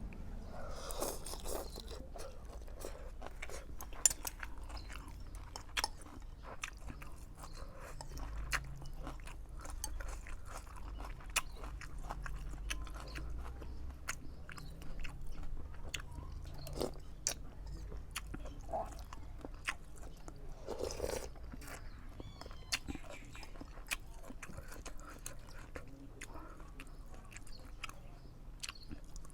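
A person eating close to the microphone: chewing and biting, with crunchy bites and many short wet mouth clicks.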